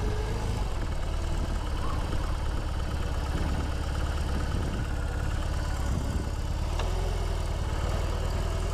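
BMW R18's big boxer-twin engine running steadily at low speed while the motorcycle is ridden.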